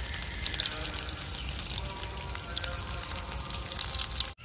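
Breaded potato cheese balls deep-frying in hot oil in a wok, the oil sizzling and crackling steadily. The sound cuts out for a moment near the end.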